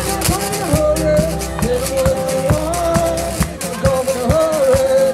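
Live acoustic blues: a man sings a drawn-out melody over a strummed twelve-string acoustic guitar, with a washboard scraped in a steady rhythm.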